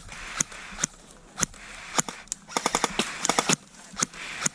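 Airsoft rifle firing: single shots about half a second apart, then a rapid burst of about eight shots a little past the middle, then two more single shots near the end.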